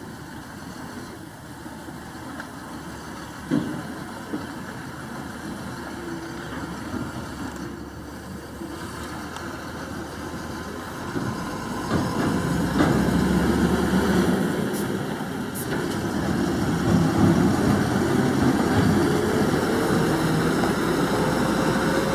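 Diesel semi-truck hauling a shipping-container trailer over a potholed dirt track, its engine running and growing steadily louder as it draws closer. A couple of sharp knocks come from the rig jolting over the bumps, and the engine's pitch climbs near the end.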